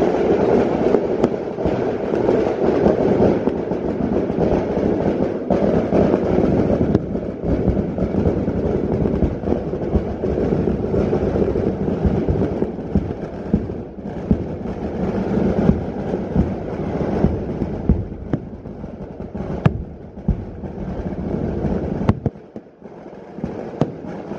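Kerala temple fireworks (vedikettu): a dense, continuous barrage of firecrackers going off in rapid succession, merging into a rumble. About two-thirds through it thins into separate sharp bangs, with a brief lull near the end before the bursts start again.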